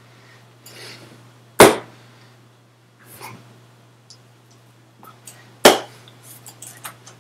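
Two sharp hand slaps, about a second and a half in and again near six seconds, with softer clicks and rustles of hand movement between, over a steady low electrical hum.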